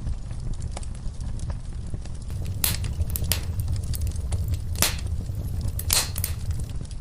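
Wood fire burning in a fireplace: a steady low rumble of flames with scattered sharp crackles, and a handful of louder pops in the middle and latter part.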